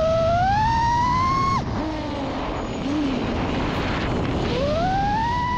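FPV quadcopter's brushless motors and propellers whining in flight, with wind rush, heard from its on-board camera. The pitch rises, cuts off suddenly about a second and a half in as the throttle is chopped, then climbs again near the end and starts to fall.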